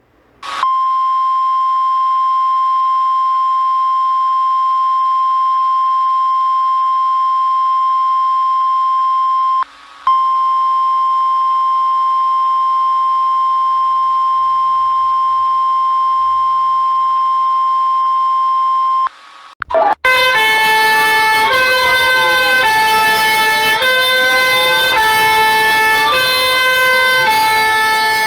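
Mock emergency-alert alarm: a single steady electronic tone, broken briefly about ten seconds in, held until about two-thirds through. It then switches to a different alarm of tones that step between pitches, with sliding pitch sweeps running through them.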